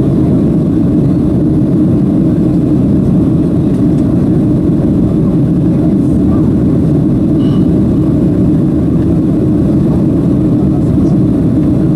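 Steady, loud cabin noise of a Boeing 737-700 in flight, heard from a window seat over the wing. It is the even rumble of its CFM56 engines and the rushing air, with no change in pitch or level.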